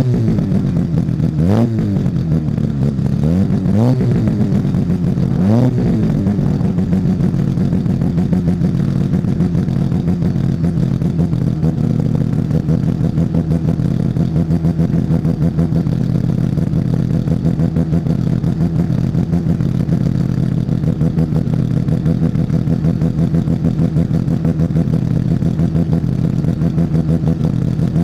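Mazda RX-7 rotary engine in an MK Indy race car running hard: the revs climb and drop sharply about three times in the first six seconds, then hold steady at a constant pitch with a rapid buzzing pulse.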